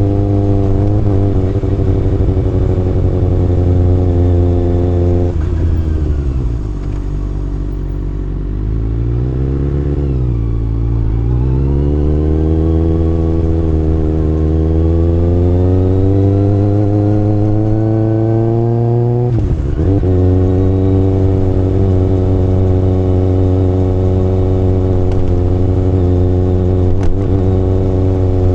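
Kawasaki ZX-6R inline-four engine on the move. It holds a steady note, drops off about five seconds in and wavers low for a few seconds, then climbs steadily in pitch under acceleration. Near twenty seconds there is a quick dip as a gear changes, and then it settles back to a steady cruising note.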